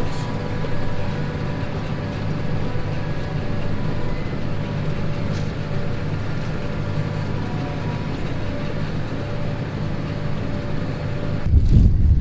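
Tractor engine running steadily under load, a constant hum with a faint steady whine above it. About a second before the end, a loud low rumble of wind on the microphone cuts in.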